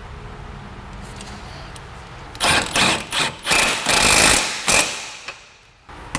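Milwaukee M12 cordless impact wrench hammering in several short bursts and one longer run of about a second, driving down the stabilizer-link nut on a new front strut.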